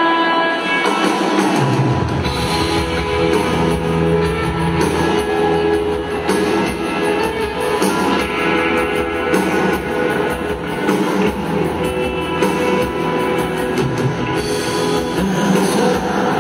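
Live rock band playing, with electric guitar and drum kit; the bass and drums come in about two seconds in.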